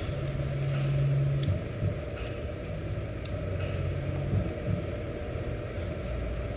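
Steady low rumble with a low hum, the hum loudest in the first second and a half and then coming and going; a faint click about three seconds in.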